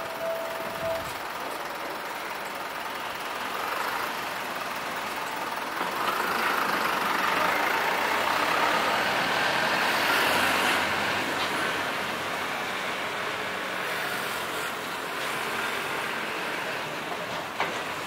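Street traffic: cars and a small box truck drive past close by, the truck loudest about halfway through. A steady tone stops about a second in.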